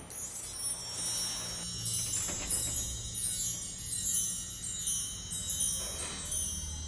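Chimes tinkling: many quick, high, bell-like notes in repeated falling runs.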